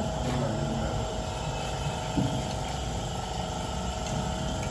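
Steady drone of a machine running in the background, with a few fixed tones over a low rumble, and one light knock about two seconds in.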